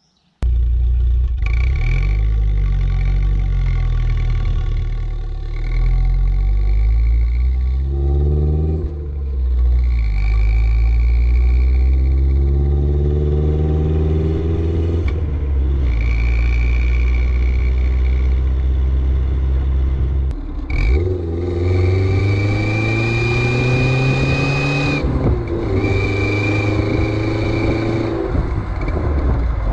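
Audi 80 Avant's engine and exhaust accelerating on the road, revs rising through the gears several times with drops at the shifts, while a novelty 'turbo' whistle clamped on the tailpipe adds a high steady whistle that comes in on the throttle. A brief clatter sounds about twenty seconds in.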